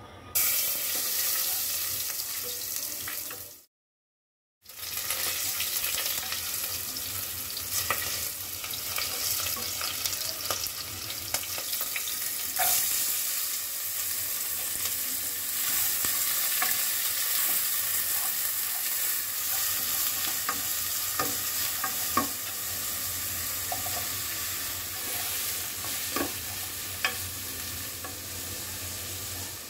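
Chopped garlic, then diced vegetables and prawns, sizzling in hot oil in a non-stick pot, with a steady hiss and a few sharp taps from a wooden spatula stirring. The sound breaks off for about a second near four seconds in.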